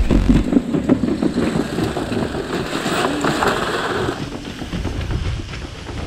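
Wire metal cage rattling and scraping on patio tiles as it is moved, a dense irregular clatter that slowly fades.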